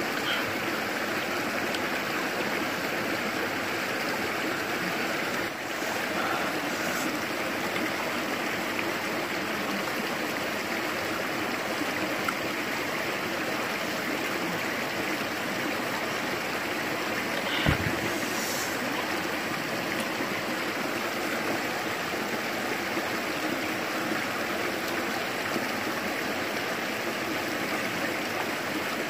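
Steady rushing of a stream, with one brief sharp knock about two-thirds of the way through.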